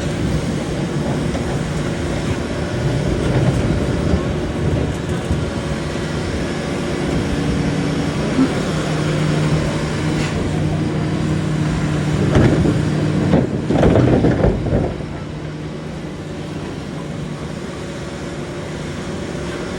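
Heavy diesel construction machinery running, its engine note holding steady with small shifts. A burst of clanks and knocks comes about twelve to fifteen seconds in, after which it runs quieter.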